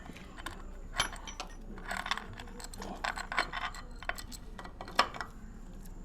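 Irregular metallic clicks and clinks of hand work on the open top end of a single-cylinder engine, as the camshafts and cam chain are handled and seated during cam timing. The sharpest knocks come about one second in and again near five seconds.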